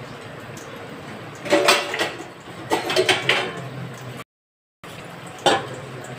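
A white plastic spoon stirs and scrapes boiled meat pieces against the side of an open aluminium pressure cooker, in three short bursts of scraping and clinking. The sound cuts out briefly for about half a second in between.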